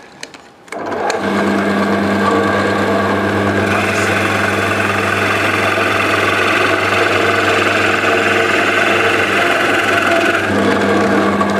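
Drill press motor starts about a second in and runs steadily while a Famag Bormax 3 Forstner bit with carbide inserts bores a clean hole into a block of sapele.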